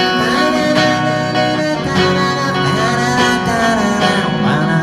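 Live pop-rock band playing, with strummed guitar to the fore.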